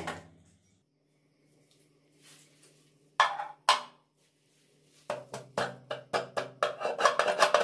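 Metal knocks and clinks from a meat grinder head being taken apart on a steel table: two sharp knocks, then a quick run of knocks about three a second as the grinding plate is worked loose. A faint steady hum sits underneath.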